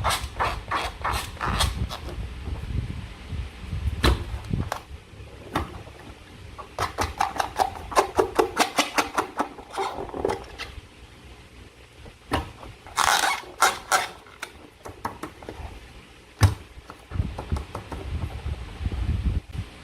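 Slime being squeezed and worked by hand, in runs of quick wet clicks and crackles with quieter gaps, and a single sharp snap about sixteen seconds in.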